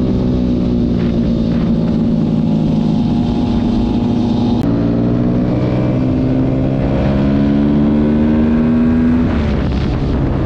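Yamaha sport motorcycle's engine running at highway speed, heard from the rider's seat. About halfway through its note breaks with a short click and steps, then the revs climb slowly before dropping off near the end.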